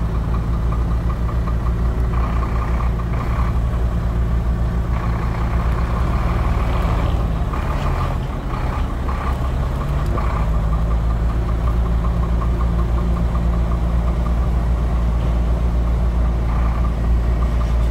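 Heavy diesel truck engine running steadily with a fast fine clatter; its speed sags briefly about eight seconds in and picks back up about two seconds later.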